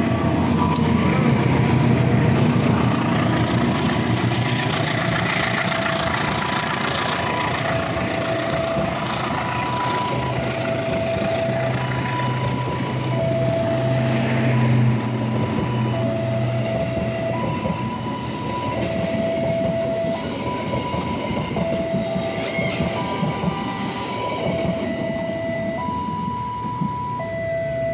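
Passenger train passing at close range, hauled by a CC 201 diesel-electric locomotive: engine rumble and wheel noise, loudest as the locomotive goes by at the start, then the coaches clattering past. Through it a level crossing warning alarm sounds, alternating a high and a low tone, each just under a second long.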